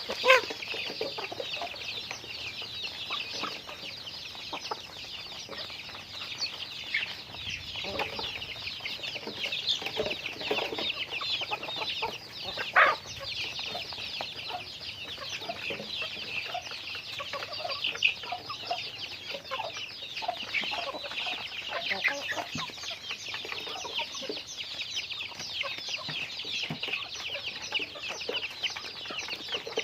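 A flock of chickens calling continuously, many short high peeps and clucks overlapping. A few louder single calls stand out, one right at the start and one about 13 seconds in.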